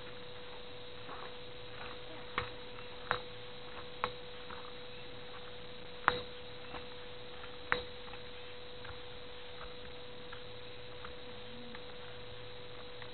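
A steady faint electrical hum, one even tone, with a handful of short sharp knocks at irregular intervals, the handling noise of a camera carried while walking.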